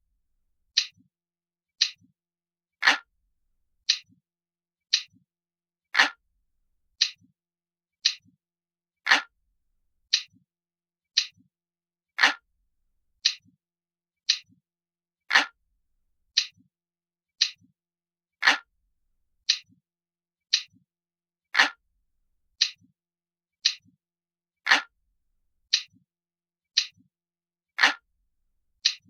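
Analog clock ticking steadily, about one tick a second, with every third tick louder.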